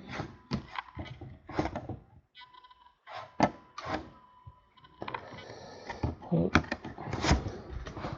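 Trading cards being handled: a series of short, scattered clicks and light rustles as cards are slid and flipped through a pack.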